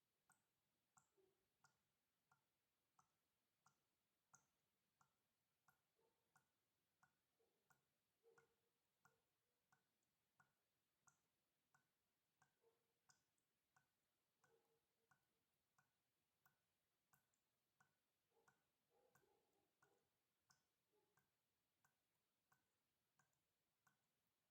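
Water dripping steadily, a drop about every half second in an even rhythm, very faint. Some drops land with a deeper plop.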